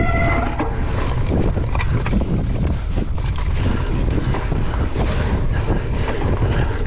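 Mountain bike rattling with many short clattering knocks as it rides over small footbridges, with wind buffeting the microphone. A steady tone cuts off about half a second in.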